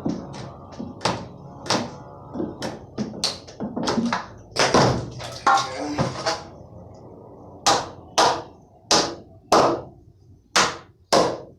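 Repeated sharp knocks and bangs on wooden formwork as plywood form boards are struck loose from under a cured concrete slab, with a heavier cluster of hits in the middle and a steady run of hard blows near the end.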